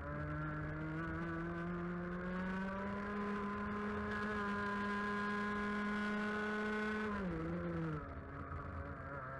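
A 125cc two-stroke TaG kart engine running hard under load. Its pitch climbs over the first three seconds and holds high, then drops sharply about seven seconds in and runs lower near the end as the revs come down.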